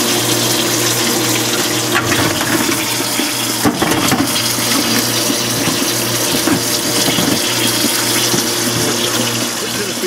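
Vintage KitchenAid Superba 21 dishwasher running with its door open: the wash pump motor hums steadily while its spray throws water, splashing. A brief knock about four seconds in.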